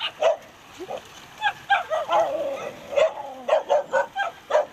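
A dog barking and yipping in quick, short, high calls, about a dozen of them in irregular bursts.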